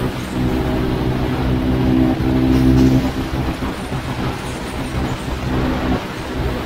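Jawa motorcycle's single-cylinder engine running at a steady cruising speed, with wind and road noise rushing over the microphone. About three seconds in, the engine note fades back and the rush of wind and road noise takes over.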